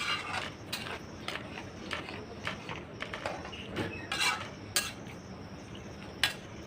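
Metal utensils clinking and scraping against a cooking pot, with a few sharp clinks near the end.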